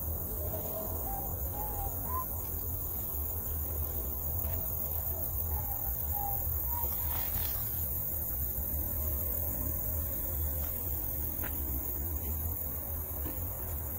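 Crickets and other insects trilling in a steady, continuous high drone over a low steady rumble, with a few short faint calls in the first half.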